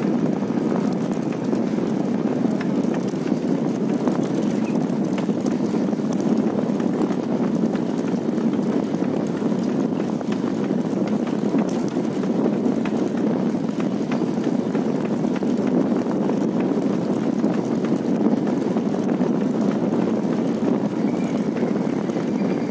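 Steady rushing wind on the microphone and road rumble from riding along a paved road, with faint clicks and rattles throughout.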